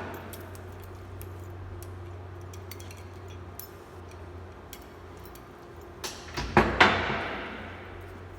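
Metal hand tools being handled and set down: light clinks and rattles, then three loud metallic clanks about six to seven seconds in, ringing briefly as they fade.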